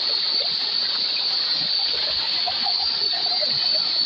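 Shallow water trickling and splashing among rocks, under a steady high-pitched drone that runs throughout.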